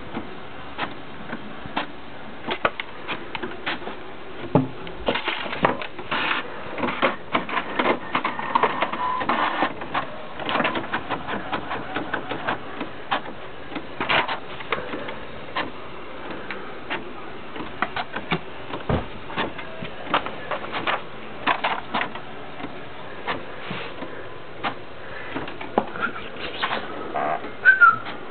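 Inkjet printer printing a page: the cartridge carriage slides back and forth with a whirr and a run of irregular clicks and knocks as the paper feeds through. A short high-pitched sound stands out near the end.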